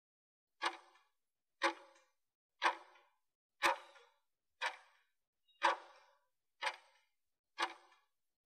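Interval timer's clock-tick sound effect, one short tick each second, eight in a row, counting down the last seconds of a work interval.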